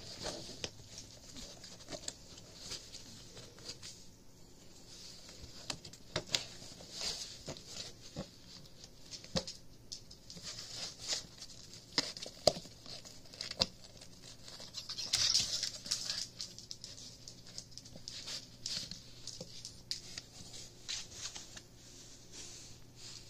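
A kitten clawing, scrambling and batting inside a thin cardboard soda-can box, with irregular scratching, rustling and tapping of the cardboard. A louder burst of rustling comes about fifteen seconds in.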